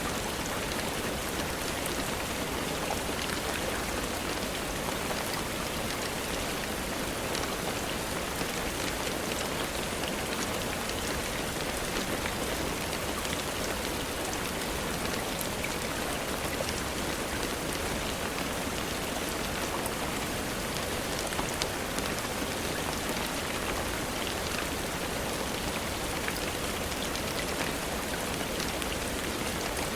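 Steady rainfall: an even hiss of rain with many small sharp drop ticks scattered through it.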